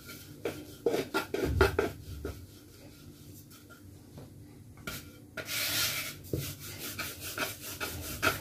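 Wooden rolling pin rolling out flatbread dough on a wooden board: irregular rubbing, scraping strokes with a few knocks of wood on wood, the loudest cluster with low thumps about one to two seconds in, a quieter stretch, then a longer scrape and more regular back-and-forth strokes near the end.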